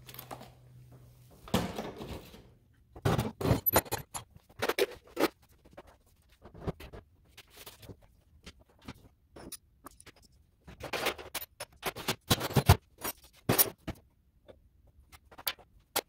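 Tools and supplies being picked up, shuffled and set down on a wooden workbench: a string of clacks, knocks and light scrapes in irregular clusters. The busiest stretches are about three seconds in and again from about eleven to thirteen seconds in.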